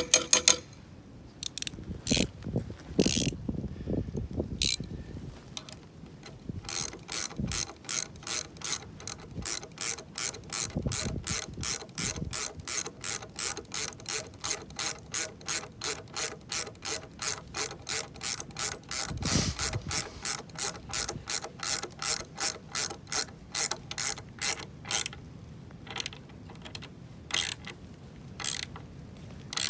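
Hand ratchet wrench tightening a bolt, its pawl clicking in an even run of about three clicks a second, after a few scattered knocks early on. The clicks grow sparse near the end as the bolt draws tight.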